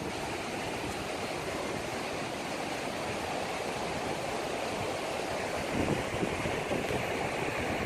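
Steady rushing of water, with wind gusting on the microphone in the last couple of seconds.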